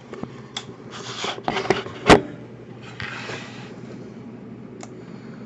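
Handling noise: brief rubbing and scraping sounds with a few light clicks, and one sharp knock about two seconds in that is the loudest sound.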